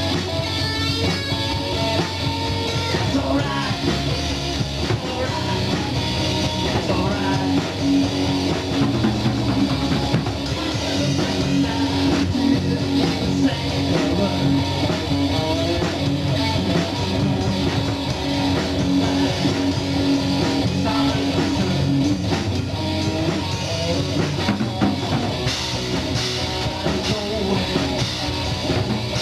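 Small rock band playing live: drum kit with guitar, one continuous song.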